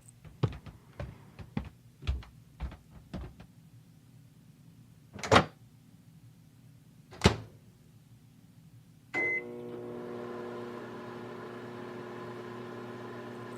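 Faint footsteps and two sharp knocks. About nine seconds in, a microwave oven beeps once and starts running with a steady hum.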